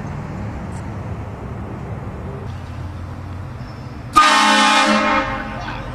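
A low steady rumble, then about four seconds in a sudden loud blast of a vehicle-mounted train horn, about a second long, fading out quickly.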